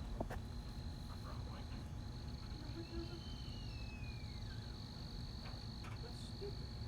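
Outdoor night-chorus ambience: a steady high-pitched trill that breaks off briefly every couple of seconds, over a steady low rumble. A faint falling whistle comes about three seconds in.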